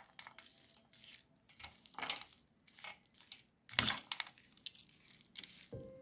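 A perforated metal ladle stirring and tossing cooked rice mixed with peanuts and cashews in a metal bowl: a run of irregular scraping, squishing strokes, with two louder ones about two seconds and four seconds in.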